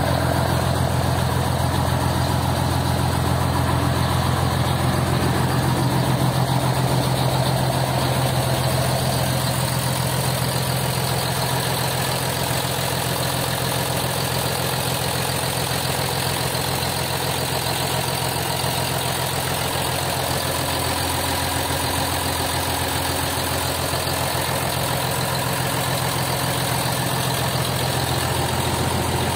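Scania K113CL coach's rear-mounted 11-litre inline-six turbodiesel idling steadily.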